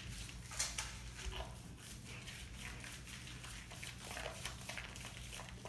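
Shallow bathwater splashing lightly as hands scrub and lather a small dog's wet fur, with many small irregular wet rubbing and sloshing noises. A steady low hum runs underneath.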